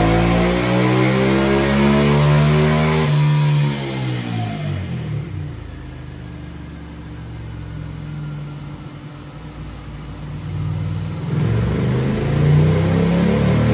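Ducati Scrambler's L-twin, with a Termignoni de-cat exhaust, revving hard under load on a dyno with its pitch climbing. About three seconds in the revs fall away over a couple of seconds to a quieter, lower steady run, then about eleven seconds in they climb again as another pull begins.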